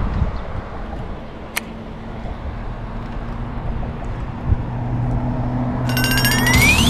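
Wind buffeting the microphone, with a low steady hum joining about halfway. Near the end an edited-in electronic zap sound effect sweeps sharply upward in pitch, marking a strike on the fishing line.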